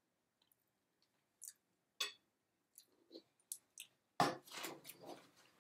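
Eating sounds: scattered light clicks and clinks of metal utensils against plates and a roasting pan, with chewing. About four seconds in, a louder rustling starts and carries on.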